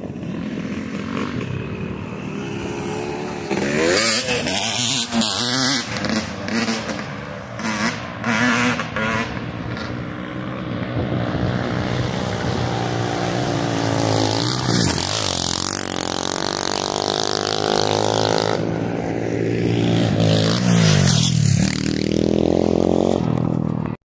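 Dirt bike engine revving up and down as it rides the track, its pitch dropping off and climbing again a couple of times in the second half.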